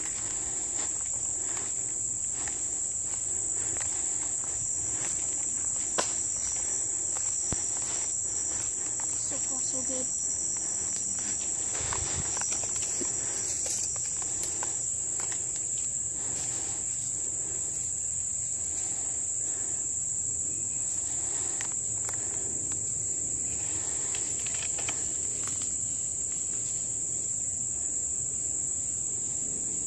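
Steady, high-pitched drone of insects, with footsteps and rustling through dry leaf litter and twigs. There are scattered light knocks and clicks, the sharpest about six seconds in.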